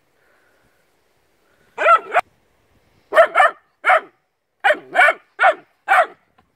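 Young puppy barking: a series of about nine short, high barks, some in quick pairs, starting about two seconds in.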